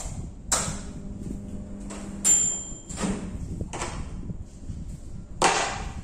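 Several knocks and clunks of objects being handled on a tabletop during appliance reassembly, one of them followed by a brief high ring.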